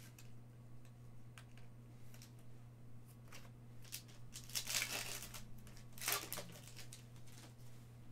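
Foil wrapper of a Panini Prizm trading-card pack crinkling and tearing open in the hands: two short rustles about halfway through, the second a second or so after the first, after a few light clicks of handling.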